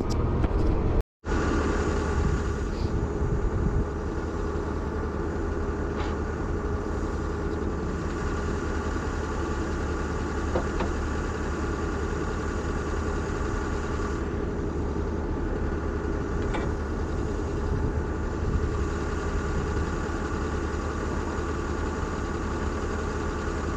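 An engine idling steadily, with a few faint metal clinks and a brief dropout about a second in.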